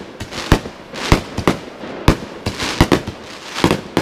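Fireworks going off in a loud, irregular string of sharp bangs and pops, about a dozen in four seconds, some in quick pairs.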